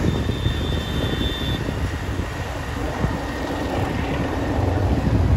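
Wind buffeting the microphone on a moving motorbike, over a steady rumble of its engine and street traffic; a faint thin high tone sounds for about the first second and a half.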